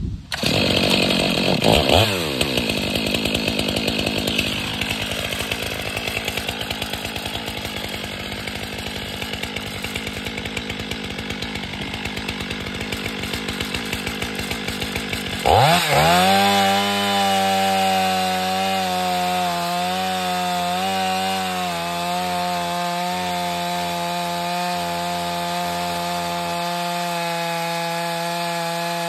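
Two-stroke chainsaw mounted in a chainsaw mill, running rough and uneven at first, with a falling pitch about two seconds in. About halfway through it jumps to a steady, high-pitched full-throttle drone as the bar rips lengthwise through a log.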